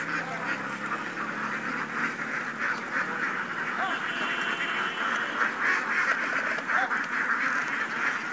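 A flock of ducks quacking together in a continuous, dense chorus of overlapping short calls.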